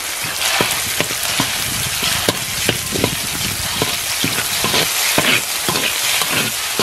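Yellow lantern chili sauce sizzling in hot oil in a large wok, stirred with a metal spatula that scrapes and clicks against the pan over and over.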